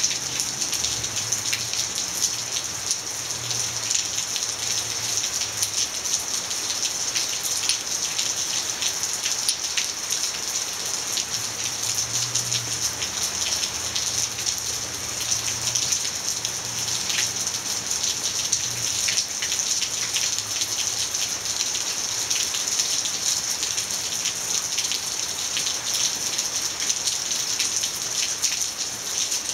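Steady rain falling, a continuous hiss with many individual drops ticking on a surface.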